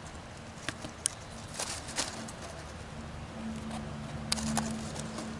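Light clicks and taps of plastic water-filter parts being handled (the back-flush adapter, tubing and plastic water bag), a few separate sharp ticks, over a steady low hum that grows stronger in the second half.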